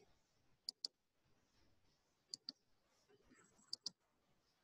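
Computer mouse being double-clicked: three quick pairs of clicks about a second and a half apart, with near silence between them.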